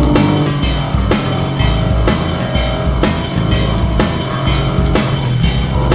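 Rock music with a steady drum beat, about two beats a second.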